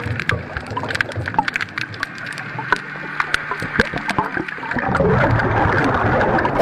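Underwater camera sound: scattered sharp clicks and crackles in the water, then a louder rushing, bubbling water noise from about five seconds in.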